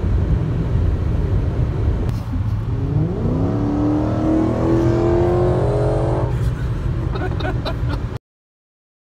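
Steady low road and wind rumble heard from inside a car at high autobahn speed. About two seconds in, the V8 exhaust of a Dodge Challenger SRT running close alongside rises in pitch as it accelerates, holds a steady note for about three seconds, then cuts off suddenly.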